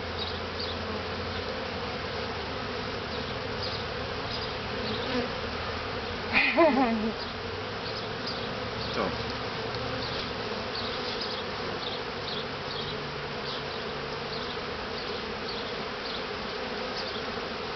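Many honeybees buzzing steadily in a constant drone around an opened top-bar hive. The colony is disturbed by its combs being handled for the honey harvest.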